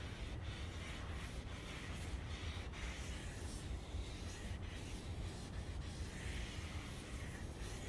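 A cloth rag wiping oil onto the bare end grain of a wooden cutting board: soft rubbing strokes over a steady low background rumble.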